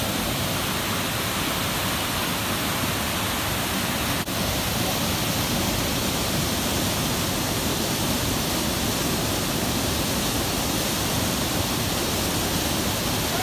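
Steady rushing water of a waterfall, an even noise with no change in level, broken only by a momentary dropout about four seconds in.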